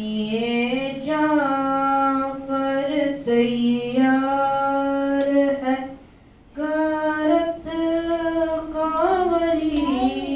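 A boy's voice chanting a mourning elegy (nauha) into a microphone, unaccompanied, in long held notes that bend slowly in pitch, with one short breath pause about six seconds in.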